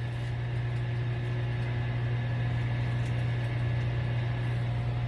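A kitchen appliance motor hums steadily, with a strong low drone and an even noise over it.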